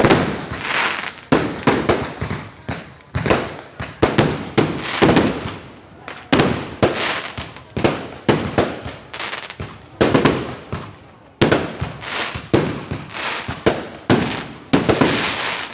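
Fireworks going off in rapid succession, a dense run of sharp bangs and crackling bursts with echoing tails, several a second.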